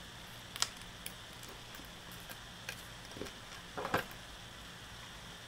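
A few light clicks and taps of a buzzer's legs and jumper wires being pushed into a solderless breadboard, the loudest a double click about four seconds in, over a faint steady hum.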